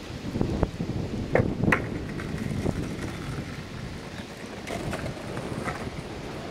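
Wind buffeting the microphone, with a few sharp clacks of a skateboard being handled and dropped onto concrete, the loudest pair about one and a half seconds in.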